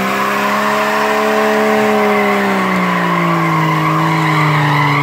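Jeep Cherokee XJ doing an all-wheel burnout: the engine is held at high revs while all four tyres spin and squeal. The engine note climbs a little in the first second or so, then sags slowly.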